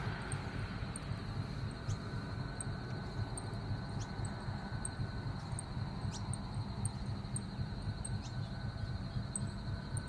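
A steady high-pitched insect trill with short, very high chirps repeating about every half second, over a low background rumble.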